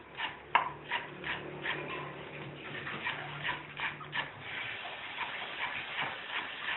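Cleaver chopping on a wooden cutting board: quick, even knocks, about three a second.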